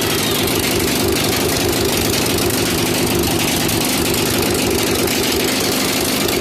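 Small engine swapped into a Murray 8/30 rear-engine riding mower, running steadily.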